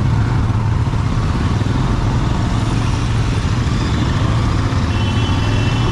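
Royal Enfield Himalayan's single-cylinder engine running steadily at low speed in slow traffic, heard from the rider's seat, with the sound of other motorcycles around it.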